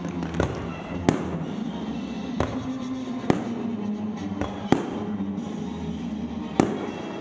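Aerial fireworks bursting: six sharp bangs, irregularly spaced one to two seconds apart, over steady music.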